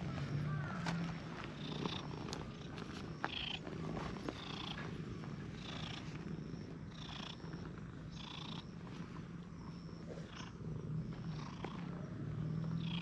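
A stray cat purring close by, a low steady buzz that is strongest near the start and again near the end. Short soft higher sounds repeat about once a second over it.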